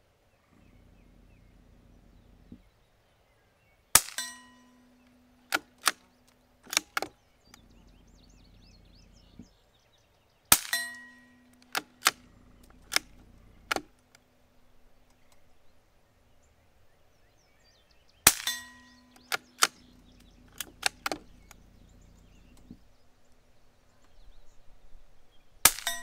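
Four shots, about seven seconds apart, from a scoped Savage Mark II bolt-action .22LR rifle firing Aguila Super Colibri, a low-powered primer-driven round. Each shot is followed by a few clicks of the bolt being worked to chamber the next round.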